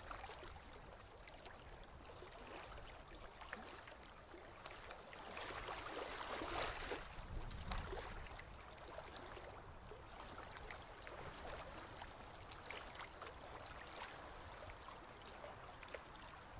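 Faint underwater ambience: a soft wash of water noise with many small scattered clicks and crackles, a little louder around six to eight seconds in.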